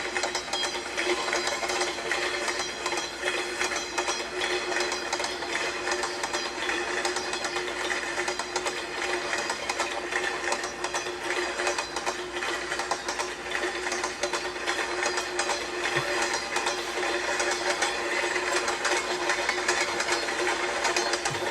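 Train wheels clicking over rail joints: a continuous, fast clickety-clack clatter with a steady hum underneath.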